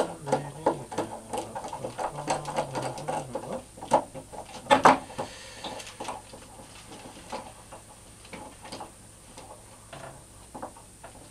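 Tools and gear being handled and repositioned on a workbench: a run of irregular clicks, clatters and knocks, with one loud knock about five seconds in and only scattered faint clicks after that.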